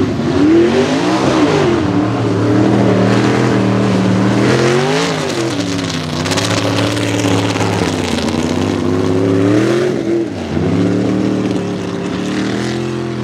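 Mega mud truck's engine revving hard, its pitch climbing and dropping several times as the throttle is worked over the humps of a hill-and-hole course.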